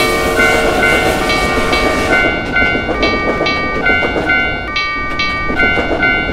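Japanese railroad crossing alarm ringing its alternating two-tone "kan-kan," about two strikes a second, over the steady rumble of a passing train.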